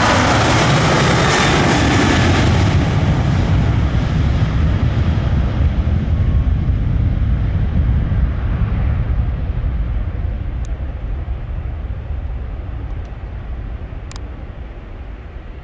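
Ryanair Boeing 737-800's CFM56 jet engines at take-off power, loud at first with a whining fan tone, then fading and losing their high end as the aircraft climbs away.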